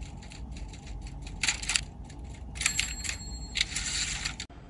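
Three bursts of light metallic clinking with a thin ringing, over a steady low rumble; the sound cuts off suddenly near the end.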